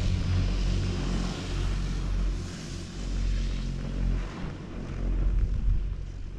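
Wind buffeting the microphone of a camera on an open, moving chairlift: a low, uneven rumble that swells and fades.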